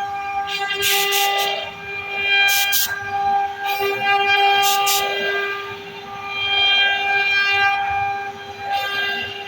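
CNC router spindle running with a steady high whine, with rushes of harsh hissing noise each time the bit cuts into the wood, about three or four times.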